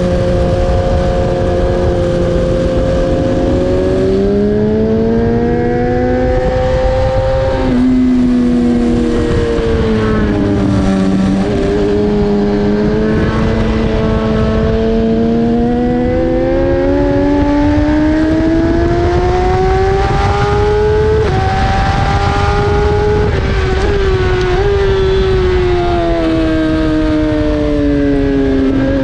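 BMW S1000RR inline-four engine at race pace on track. Its pitch climbs over several seconds under acceleration, then falls away under braking, twice. Sudden steps down in pitch mark gear changes, over a constant rush of noise.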